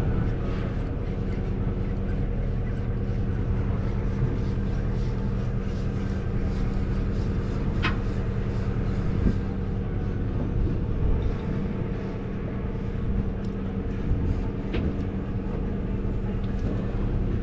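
A boat's engine running steadily with an even low drone, with a few faint clicks about eight seconds in and near the end.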